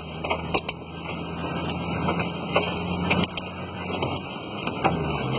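Car engine running with a steady low hum inside the cabin, its note dropping near the end, while wind-driven rain pelts the windshield in frequent sharp taps during a severe storm.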